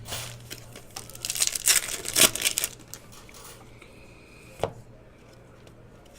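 Foil trading card pack wrapper crinkling and tearing as a pack is opened, for about a second and a half, with a couple of light clicks of handling.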